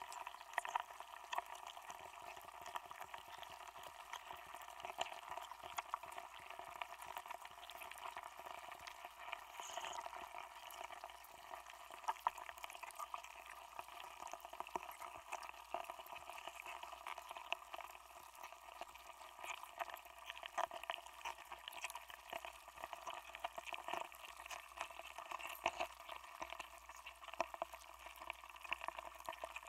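Block of ice melting under water, heard through contact microphones frozen inside it: a dense, irregular crackle of tiny clicks and pops that goes on without a break.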